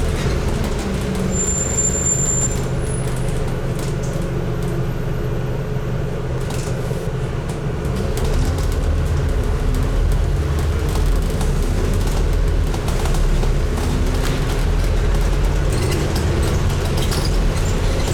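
Scania N250UD double-decker bus's five-cylinder diesel engine running as the bus drives, with road and body noise; the engine note rises and falls a few times as it accelerates and shifts.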